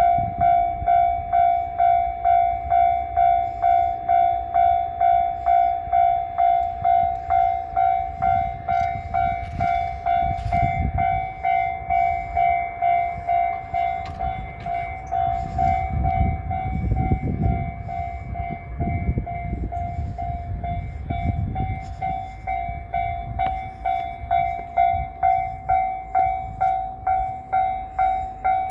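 Japanese railway level-crossing alarm ringing its steady, even, repeated warning tone, about one and a half strokes a second. Under it, passing trains rumble and clatter, loudest about halfway through.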